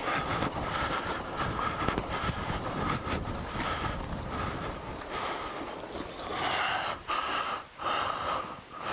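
Kawasaki KLR650 single-cylinder engine running at low speed over a rocky trail, with the rider's heavy breathing coming in rhythmic gusts about once a second.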